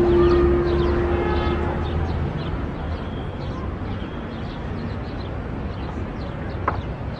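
Park ambience: small birds chirping over a low steady rumble, with a held low musical note ending about two seconds in and a single sharp click near the end.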